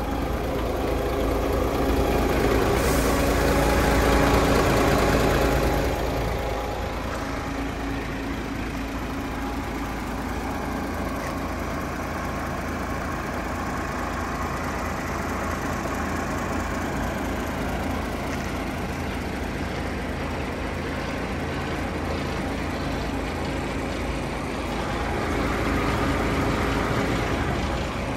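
DAF XF106's Paccar 460 hp Euro 6 diesel engine idling steadily, a low even hum that grows louder for a few seconds near the start and again near the end.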